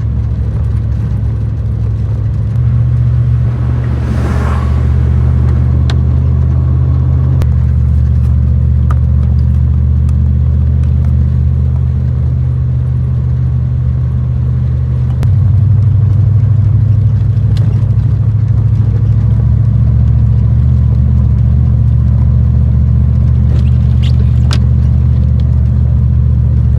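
Gasoline Ram 3/4-ton pickup pushing snow with a DK2 plow: a steady low engine-and-drivetrain drone that steps up a few times, most clearly about fifteen seconds in. A brief hissing sweep comes about four seconds in.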